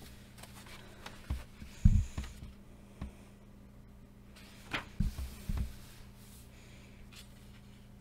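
Paperback colouring book handled by hand: pages turned and pressed flat, giving a few soft thumps and paper rustles, the loudest about two seconds in and a cluster of them around five seconds, over a steady low hum.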